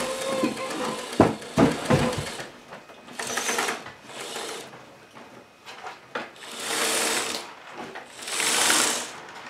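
HO-scale model train running, with a quick run of clicks and knocks over the first two seconds, then four short bursts of high hiss, each about a second long.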